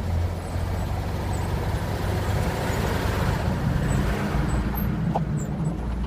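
Heavy truck running along a road: a steady low engine drone mixed with tyre and road noise.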